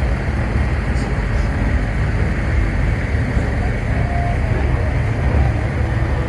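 Steady low rumble of idling truck engines.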